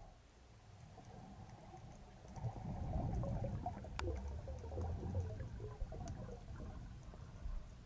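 Underwater water noise heard through an action camera's waterproof housing as a freediver glides along: a low rumbling swash that swells in the middle, with scattered faint ticks and one sharp click about four seconds in.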